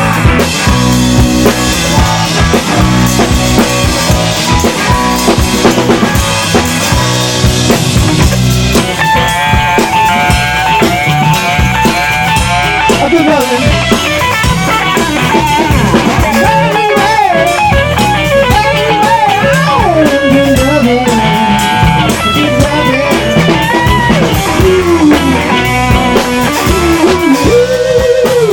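Live band playing an instrumental break: drum kit and guitars keep a steady groove, and a lead line of bending notes comes in about nine seconds in.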